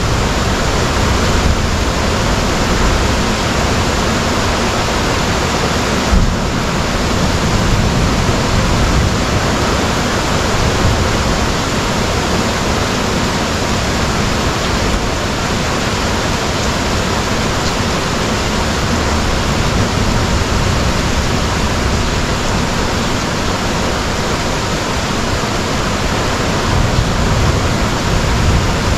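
Heavy rain pouring steadily, a constant even wash of noise, with one brief sharp tick about six seconds in.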